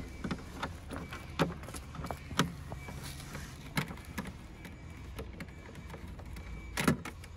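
Hand screwdriver taking screws out of a small panel on a satellite terminal's plastic casing: a scattering of light clicks and taps, with a louder knock about seven seconds in.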